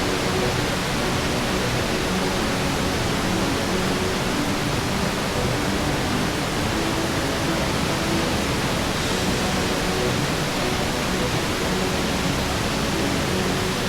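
A waterfall's steady rush of falling water, an even, unbroken noise with no distinct events.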